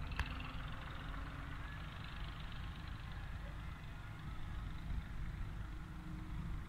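A vehicle engine running steadily with a low rumble, and a single click shortly after the start.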